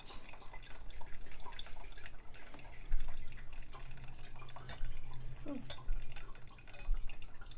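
Brewed coffee dripping from a stainless steel pour-over filter cone into a mug, with a few small sharp clicks as the metal filter is handled.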